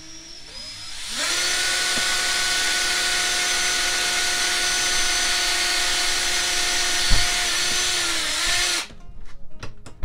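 Cordless drill boring the first screw hole: it starts slowly, comes up to full speed about a second in and runs with a steady high whine, then winds down and stops near the end. A single thump about seven seconds in.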